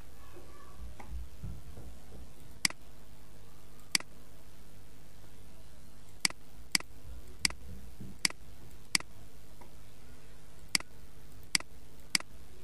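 Computer mouse button clicking: about ten short, sharp clicks at uneven intervals over a faint low hum.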